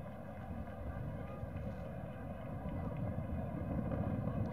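Stadium crowd noise: a steady rumbling murmur of many voices that grows a little louder toward the end, over a constant hum from the old film sound track.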